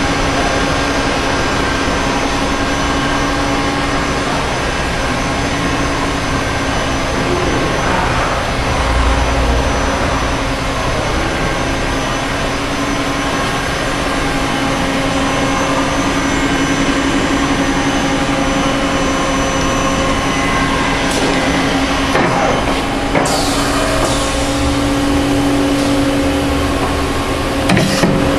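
Mori Seiki MV-45/40 vertical machining center running under power: a loud, steady mechanical hum with several steady tones, one low tone strongest. A few sharp clicks come near the end.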